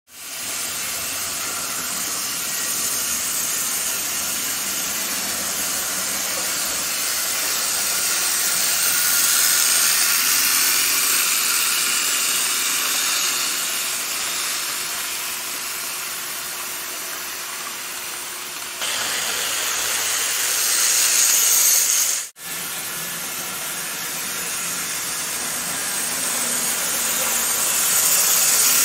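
Gilbert American Flyer HO model trains running on the layout: a steady hissing whir of the locomotive motors and the wheels on the track. It swells as the trains pass close and eases off as they move away, and breaks off for a moment about 22 seconds in.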